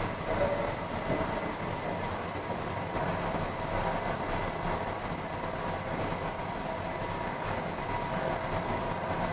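Steady hum and rumble of a Washington Metro train at the station, with a few faint steady tones running through it.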